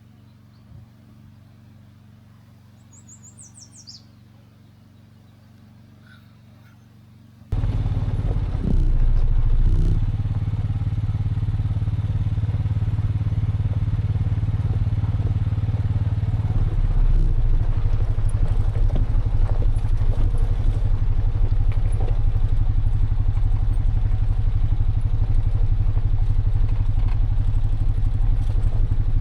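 Quiet outdoor air with one brief high chirp, then about a quarter of the way in a vehicle engine's steady low drone cuts in abruptly and runs on, as from a vehicle being driven.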